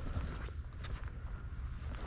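Footsteps of a person walking on rough ground: irregular crunches and scuffs over a steady low rumble.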